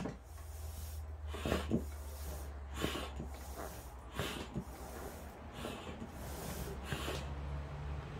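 Foot-operated air pump pressed stroke after stroke, each stroke sending a breathy whoosh of air through its hose, roughly one a second, with a few sharp clicks from the pump. The air is blown onto the grill to fan the barbecue charcoal.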